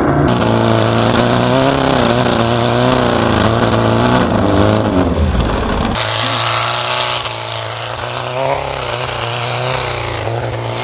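Air-cooled Volkswagen engine revving up and down under load, with a steady rushing hiss over it, as the VW is driven through snow. The sound changes abruptly about six seconds in.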